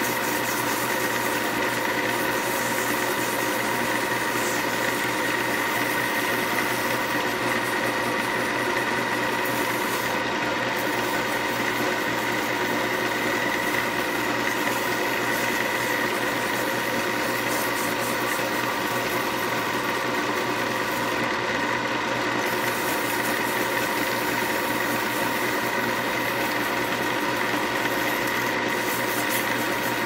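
Wood lathe running at a steady speed, a continuous hum with a whine on top, while sandpaper is held against the spinning snakewood pen barrel.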